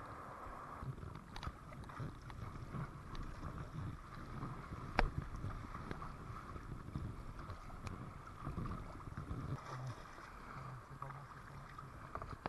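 Kayak paddle strokes splashing in the river, over the rushing of white water and gusts of wind on the microphone, with one sharp knock about five seconds in.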